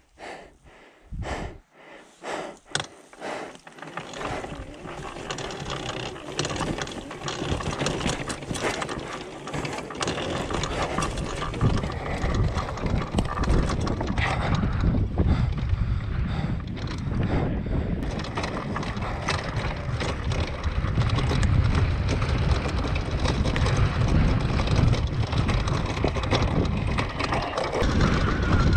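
Dirt bike being ridden: a few separate knocks in the first seconds, then a steady mechanical rattle and rush that grows louder from about ten seconds in.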